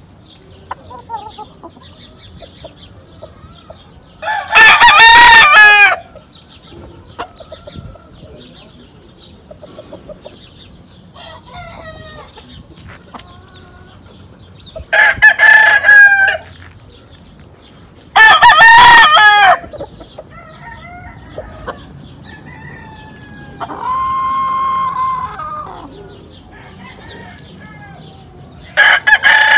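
Gamecocks crowing: four loud crows of about a second and a half each, spread out, with a quieter, flatter crow between the third and the fourth.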